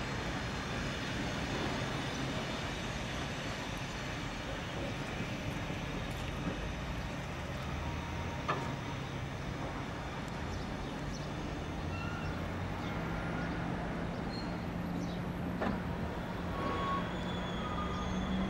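Freight train of open steel box wagons rolling past close by: a steady rumble of wheels on the rails, with a few sharp clicks and some faint, short squeaks in the second half.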